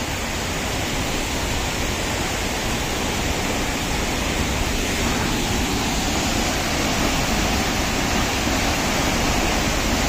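Waterfall close by: a loud, steady rush of falling water, even and unbroken throughout.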